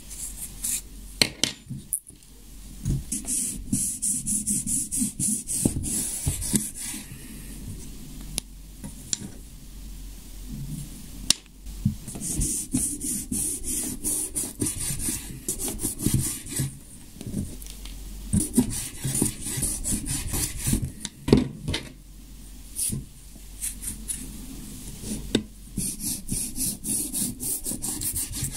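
Kitchen knife sawing through rolled paper tubes on a wooden cutting board, in several bursts of quick back-and-forth scratchy strokes, with sharp knocks of the blade or tube on the board between them.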